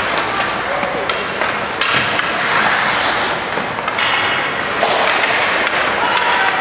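Ice hockey play: skate blades scraping the ice and scattered sharp clacks and knocks from sticks, puck and boards, with spectators' voices.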